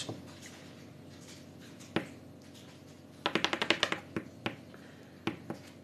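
Long fingernails tapping and clicking: a single tap, then a quick run of about ten clicks in under a second, then a few scattered taps.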